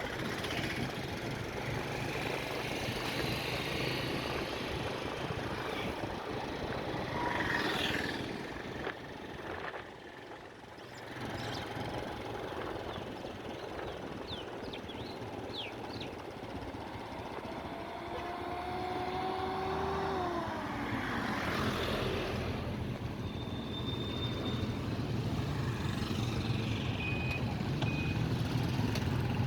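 Road traffic with motor vehicles running and passing. An engine-like pitched sound rises and falls briefly near the middle, and a few short high beeps come near the end.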